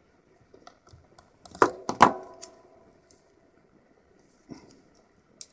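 Small side cutters snipping through clear heat-shrink plastic on a circuit board: two loud, sharp snips about a second and a half to two seconds in, the second with a brief ringing. Lighter clicks and crackles of the handled plastic come before and after.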